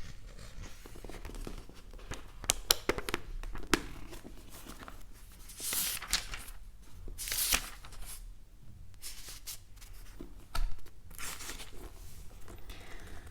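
ASMR inaudible whispering: unintelligible breathy whispers and wet mouth clicks close to the microphone, with scattered sharp clicks and a couple of longer hissing breaths.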